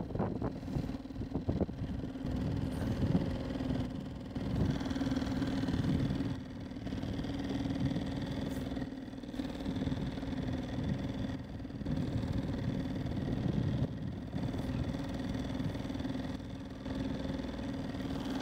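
Small 2.6 hp outboard motor running steadily as it drives the loaded boat through the water, a constant hum that does not rise or fall in pitch.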